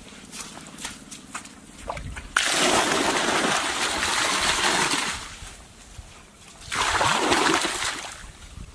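Water splashing in two long surges. The first starts suddenly a couple of seconds in and runs for nearly three seconds; the second is shorter and comes near the end.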